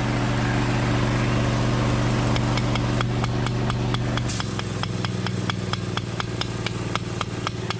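Steady motor hum from the chain-pulling rig as its tension is let out. The hum shifts down in pitch about four seconds in. From about two and a half seconds in there is rapid, regular clicking, several clicks a second.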